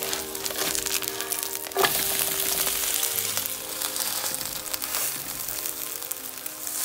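Korean vegetable pancake batter sizzling as it fries in oil in a pan. About two seconds in there is a brief sharp knock, and after it the sizzle is louder.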